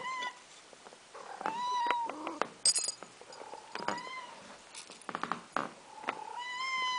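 Pet cats meowing about four times, long rising-and-falling meows, begging for food. A few light clicks come between the meows.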